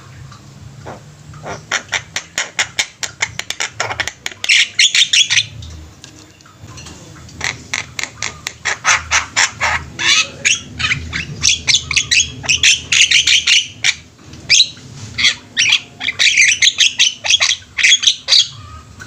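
Several Javan mynas calling together: loud, rapid chatter of harsh, squawky notes in bursts of a second or two, with short pauses between.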